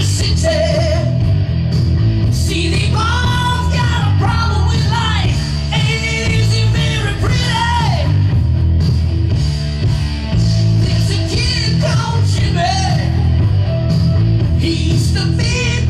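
A man singing a rock song into a handheld microphone over a loud rock backing track with a heavy bass, his held notes wavering with vibrato.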